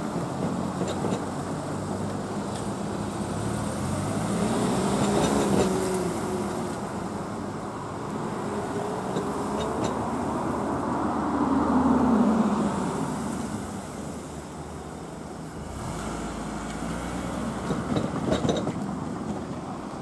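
Cars driving slowly over a railway level crossing one after another, engines swelling and fading as each passes, with a few short knocks from tyres going over the rails.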